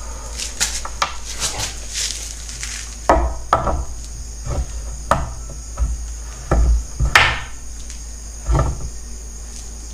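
Irregular knocks and clicks from a candle and other small objects being handled and set against a wooden table, about a dozen over the stretch. Crickets chirp steadily behind them.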